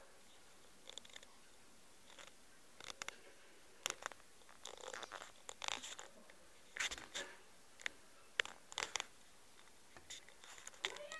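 Faint, scattered clicks and rustles at irregular intervals.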